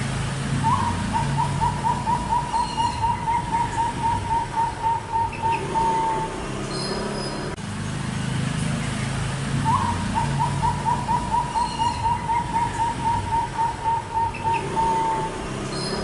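Zebra dove (perkutut) cooing: a rapid series of about twenty short, even coos ending on a slightly longer, lower note, given twice, about nine seconds apart.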